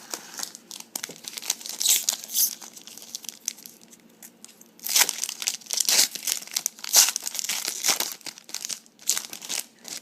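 A trading card pack's wrapper being torn open and crinkled by hand, in irregular crackling bursts.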